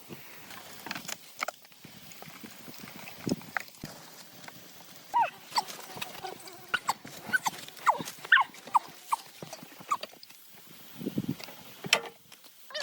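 Irregular clicks, taps and knocks of hand tools on metal tractor parts, with several short squeaks in the middle.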